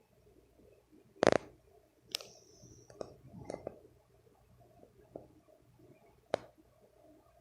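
Sharp clicks and knocks at irregular intervals in a quiet room, about six in all, the loudest and fullest a little over a second in.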